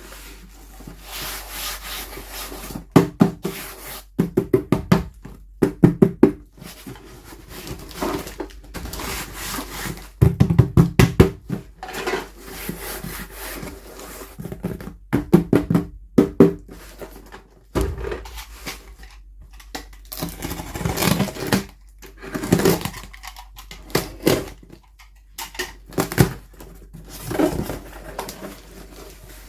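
Hands tapping and handling toy packaging: sharp taps and knocks in quick clusters, with quieter rustling between.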